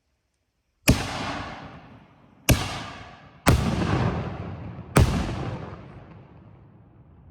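Two Ghostbusters aerial firework shells going off: four loud booms spaced about one to one and a half seconds apart, each trailing off in a rolling echo that slowly fades.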